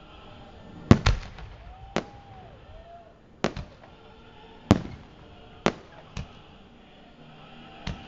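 Fireworks bursting in the air: a string of about nine sharp bangs at uneven gaps, the loudest a quick double bang about a second in.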